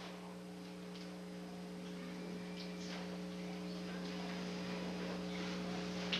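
Steady electrical mains hum in the sound system, a low buzzing drone over a faint hiss, with a few soft clicks. It grows slowly louder.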